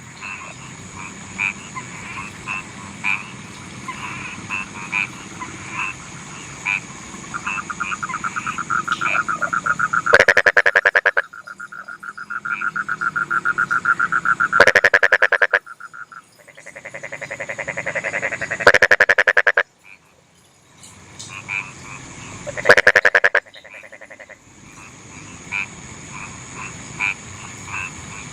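A chorus of rice-field frogs croaking. Fast runs of pulsed calls build in loudness, and four loud croaks come about four seconds apart through the middle, over a steady high tone.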